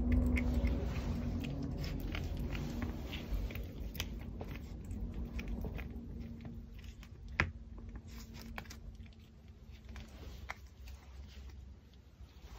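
A Pomeranian gnawing and chewing a raw pork backbone: irregular crunches and clicks of teeth on bone, with one sharp crack about seven seconds in. The chewing thins out near the end.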